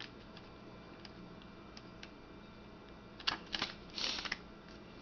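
Pages of a paper manual being leafed through and handled: a few short papery rustles and flicks about three to four seconds in, after faint room tone.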